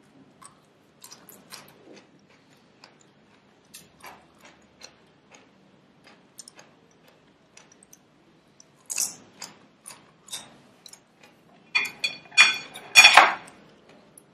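Soft, scattered clicks of someone chewing crisp steamed vegetables, then, about twelve seconds in, a run of loud clinks as chopsticks and a metal spoon knock against a ceramic plate, the spoon ringing briefly.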